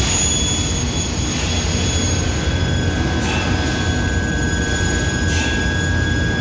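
Steady drone of running machine-shop machinery around the CNC mill, with thin high whining tones; a new steady whine comes in about two seconds in. A few faint taps of the control-panel keys sound over it.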